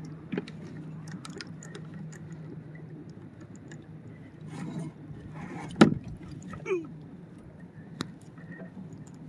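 Small knocks and clicks of gear on a plastic fishing kayak, with one sharp, loud knock about six seconds in and a smaller one near the end, over a faint steady low hum. A short squeak falls in pitch just after the loud knock.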